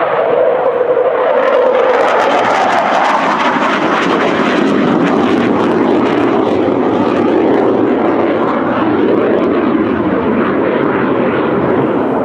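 Hawker Hunter's single jet engine as the jet flies its display, a loud, continuous rushing jet noise whose pitch drops about two seconds in.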